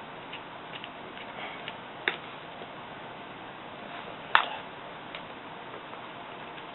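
Faint scattered ticking and clicking of a small screwdriver backing tiny screws out of a laptop's screen frame, with two sharper clicks about two seconds in and just over four seconds in.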